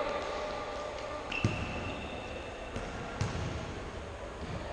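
Futsal ball being kicked on an indoor court: a few dull thuds, the loudest about one and a half seconds in and another around three seconds in. A thin high tone lasting about a second and a half sounds between them.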